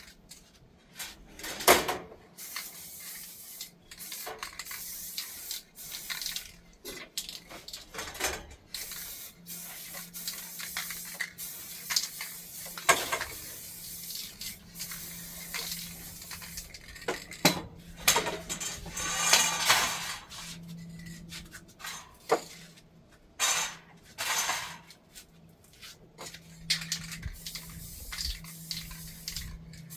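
Irregular knocks, clacks and rustles of hands-on work with tools and parts, with a few short hissing bursts. A low steady hum sets in about a third of the way through.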